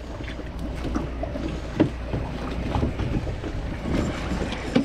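Idling boat engine with a steady low hum under wind and water noise, mixed with scattered knocks and clicks from handling the bait bucket; the sharpest knock comes about two seconds in.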